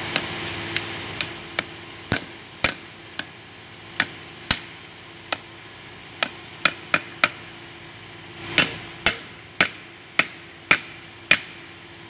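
Hammer tapping a new oil seal into a steel seal housing, about twenty sharp metallic strikes at an uneven pace, worked around the ring to drive the seal in until it seats against its stop. The blows grow heavier in the second half.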